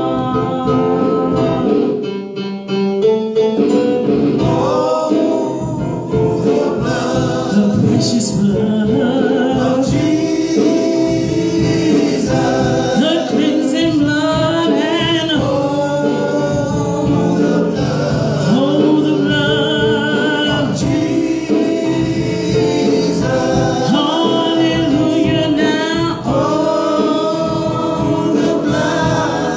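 Gospel vocal group singing a slow hymn in close harmony, several voices holding and sliding between notes together.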